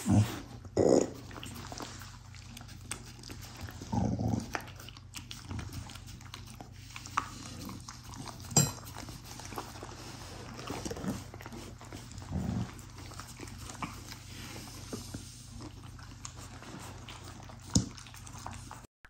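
A Samoyed licking an empty plate clean: irregular wet licks and slurps, with two sharp clicks, one about halfway through and one near the end.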